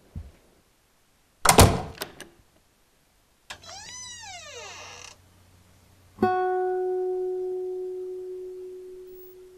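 A loud thunk, then a smooth tone that rises and falls for about a second and a half, then a single plucked guitar note that rings out and slowly fades.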